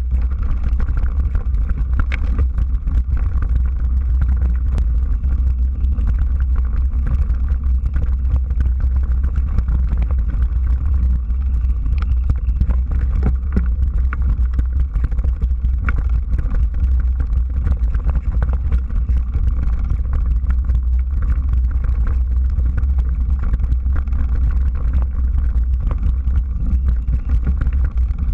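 Wind buffeting the microphone of a camera on a mountain bike riding fast down a dirt trail: a steady low rumble over tyre noise, with many scattered rattles and clicks from the bike.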